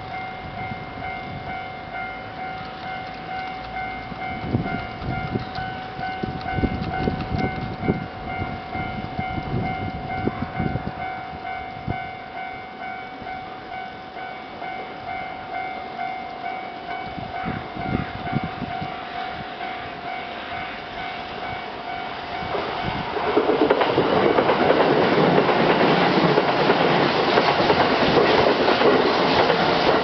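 JR Central KiHa 75 diesel multiple unit running slowly past, its wheels clicking over rail joints in uneven runs. About 23 seconds in, a louder, steady rushing rail noise rises and holds.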